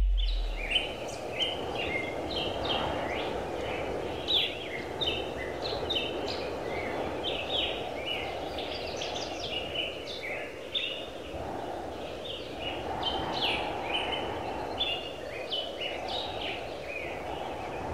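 Birds chirping and calling over and over, over a steady background rush. The low tail of the anthem's closing orchestral chord dies away in the first second.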